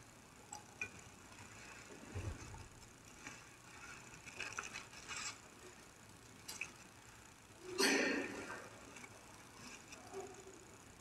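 Faint scattered clicks and knocks of small objects being handled, with one louder knock about eight seconds in.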